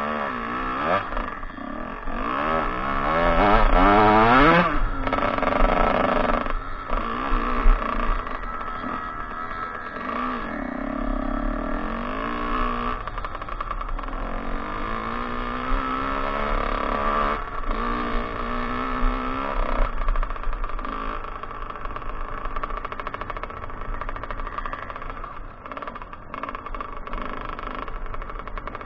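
Kawasaki KX 125 two-stroke motocross engine revving under way, its pitch rising sharply to a loud peak a few seconds in, then running at lower, varying revs with smaller rises and falls.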